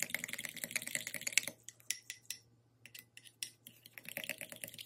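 A fork stirring chia seeds in milk in a glass bowl: quick clinks and scrapes of the tines against the glass. The clinking is rapid for the first second and a half, thins to scattered ticks with a short lull midway, then picks up more faintly.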